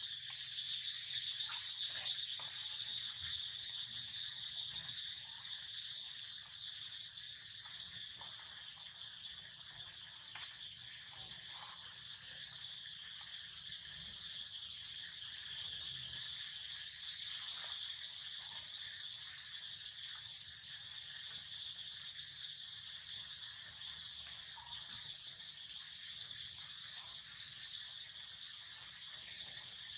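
Steady, high-pitched chorus of insects, with a single sharp click about ten seconds in.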